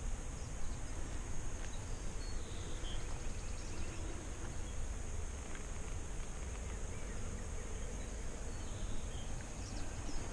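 Outdoor field ambience: a steady high insect drone over a low rumble, with a few faint bird chirps.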